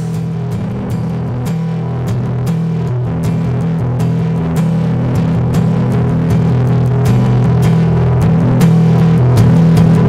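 Instrumental rock music: guitar and bass holding low notes over a steady drum beat, slowly getting louder.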